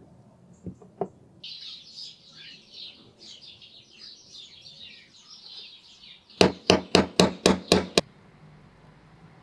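A small hammer tapping the steel handle pin of a watchmaker's vise screw: seven quick, sharp taps about four a second, the loudest sound here. Before them, birds twittering for several seconds, with two light clicks of metal parts near the start.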